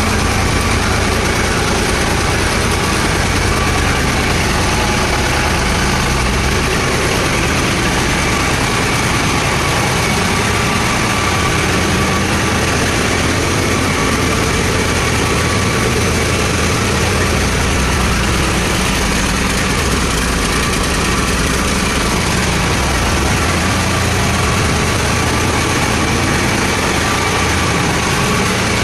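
Large diesel engine running steadily at idle: a constant low drone with a faint steady whine on top, unchanging throughout.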